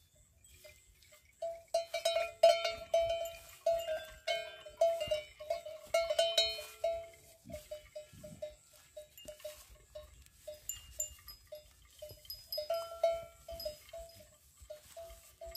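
Metal bell on a walking cow's neck clanking with its steps: a busy run of clanks from about a second and a half in, then lighter, scattered clinks.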